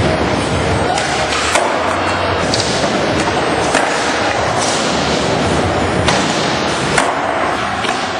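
Skateboard wheels rolling on a hard skatepark floor, with a few sharp clacks of the board landing or hitting the ground.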